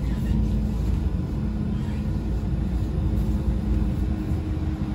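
Steady low rumble of a moving rail vehicle with a faint steady hum.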